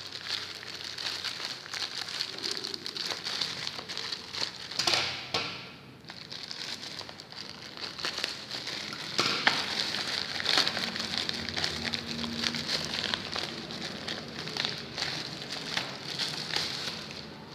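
Plastic packaging crinkling and rustling as it is handled and opened, with many small clicks and taps throughout.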